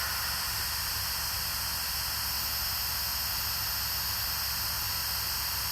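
Steady hiss of background noise with a faint low hum, unchanging throughout, with no distinct event.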